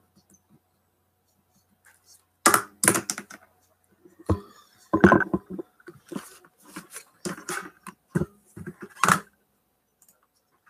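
Handling noise: a string of irregular knocks, clicks and rustles, starting after a couple of seconds of quiet and stopping shortly before the end.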